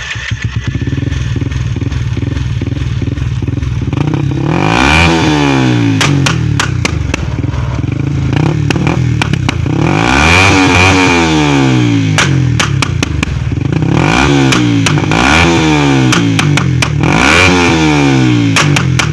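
Yamaha Y15ZR's single-cylinder 150cc four-stroke engine breathing through an HPSP Racing 'cutting standard' aftermarket exhaust. It idles, then from about four seconds in it is revved hard and let fall back several times, with sharp cracks and pops from the exhaust as the revs rise and drop.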